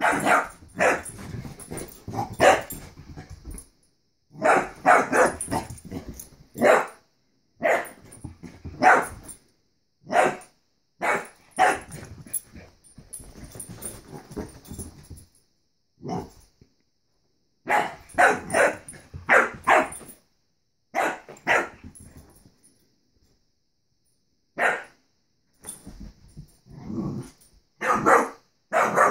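A dog barking at a balloon in runs of quick, sharp barks, with pauses between runs and one longer quiet spell a little past two-thirds of the way through.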